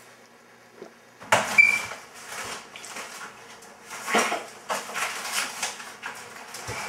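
Kitchen clatter from someone rummaging at a counter: a sharp clatter with a short ringing clink about a second in, then a run of irregular knocks and rattles of dishes and other kitchen items.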